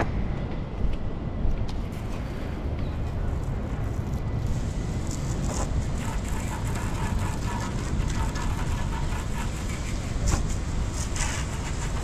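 Garden hose spraying rinse water onto a yacht's mast, a hiss with fine crackle that starts about four to five seconds in, over a steady low rumble.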